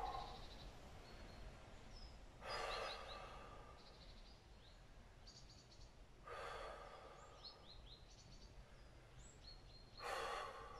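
A man's slow breaths, one every three to four seconds, as he recovers from a held abdominal exercise. Small birds chirp faintly in between.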